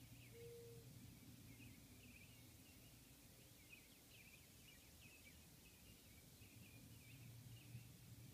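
Faint dawn chorus of small birds chirping continually, with one short, low, steady note about half a second in, over a faint low hum.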